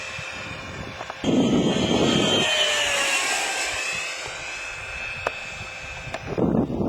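E-flite Hawk radio-controlled model jet flying past with a high whine that glides down in pitch as it passes. A loud rush of noise comes with the pass about a second in, and more rushing starts near the end.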